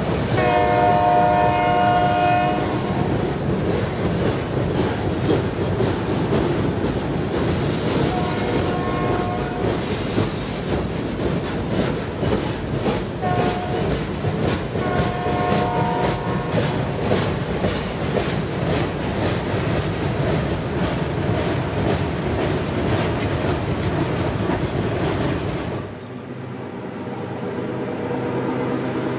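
A passing train sounds its multi-chime locomotive horn in the grade-crossing pattern: long, long, short, long. Wheels clatter rhythmically over the rail joints throughout. Near the end the sound cuts suddenly to a quieter, steady rumble.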